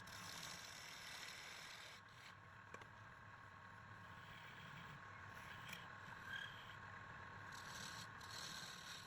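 Wood lathe running faintly with a steady hum, with light scraping against the spinning wood.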